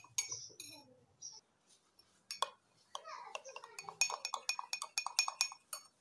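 Metal spoon clinking against a glass mug as a thick mixture is beaten in it: scattered clinks at first, then a fast run of about five clinks a second in the second half.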